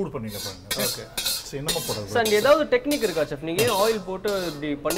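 A metal wok and cooking utensils clink and scrape several times, under a man talking.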